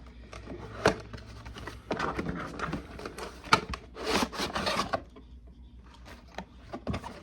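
Cardboard action-figure box being handled while the tape on it is picked at: rubbing and scraping with a few sharp clicks and knocks.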